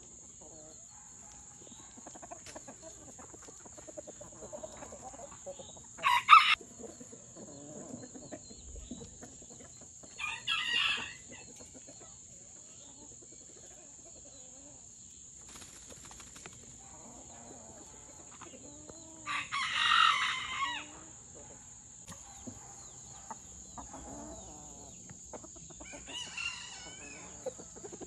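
Backyard chickens clucking softly, broken by several loud calls: a sharp squawk about six seconds in, another about ten seconds in, and a longer call of well over a second about twenty seconds in. A fainter call follows near the end.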